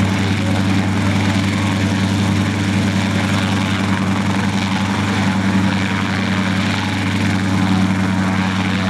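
Hughes 269C light helicopter hovering just above the ground, its four-cylinder Lycoming piston engine and main rotor running steadily with a low, even hum.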